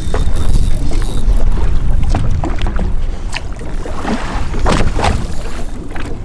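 Water slapping against the hull of a small boat rocking on a swell, under a low wind rumble on the microphone, with several sharp splashes or knocks in the second half.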